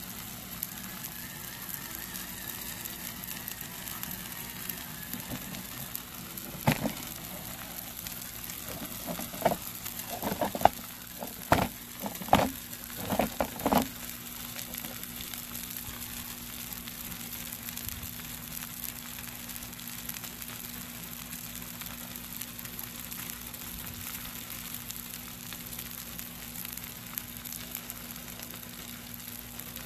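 T-bone steaks sizzling on a griddle plate over a fire pit, with a steady frying hiss. A short run of sharp knocks and bumps comes about a quarter to halfway through and is louder than the sizzle.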